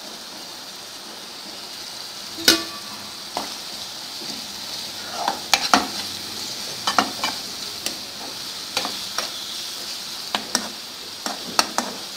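Chopped onions, green chillies, ginger-garlic paste and curry leaves sizzling steadily in hot oil in a nonstick kadai. From about two and a half seconds in, a metal spoon stirs them, scraping and clicking against the pan in short bunches.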